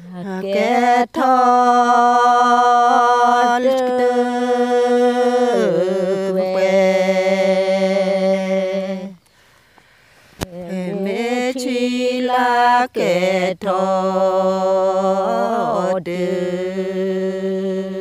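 A woman's voice chanting a Karen traditional verse unaccompanied, in long held notes. One phrase fills the first half, then a short pause about nine seconds in, then a second phrase.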